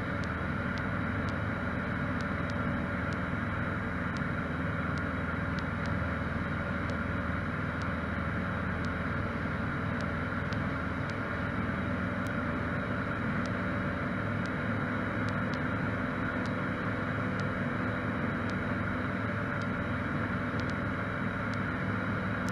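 Steady drone of a Cessna 152's four-cylinder Lycoming O-235 engine and propeller in cruise flight, heard from inside the cockpit.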